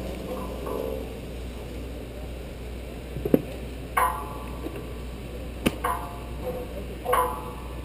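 Metal rigging on an aluminum truss tower with a half-ton chain hoist: a few sharp clicks and several short, ringing metallic clanks, spaced a second or two apart.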